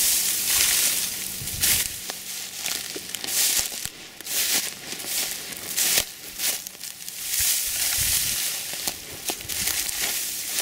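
Close rustling and crackling of reed mulch and chicken wire being handled and pulled off a garlic bed, uneven throughout, with a few sharp clicks.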